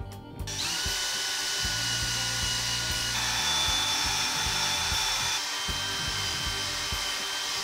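Cordless drill spinning a foam polishing pad against a metal bicycle crank arm. It starts about half a second in and runs steadily, its whine shifting pitch twice, over background music.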